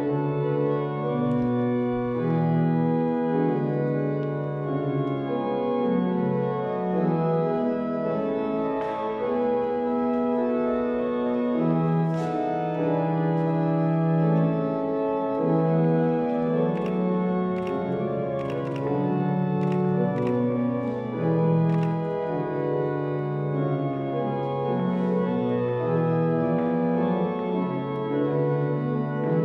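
Organ playing slow, sustained chords, with a few faint knocks in the middle.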